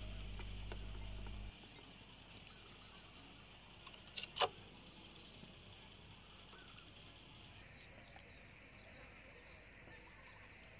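Steel ladle clinking sharply against a stainless steel pot a little after four seconds in, over faint steady insect chirping. A low hum cuts off about a second and a half in.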